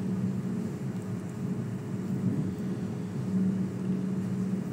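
Steady low hum of a commercial kitchen's extraction canopy fan, swelling and easing slightly.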